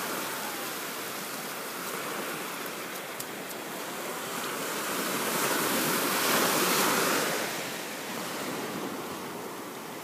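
Ocean surf: small waves breaking at the shoreline, with a louder wave crashing about six seconds in.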